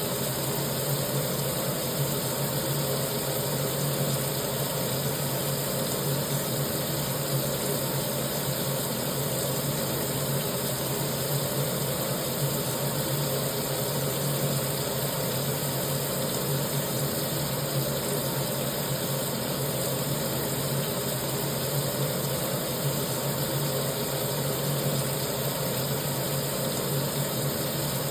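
Kitchen sink tap running, water pouring steadily into the sink basin at an unchanging level.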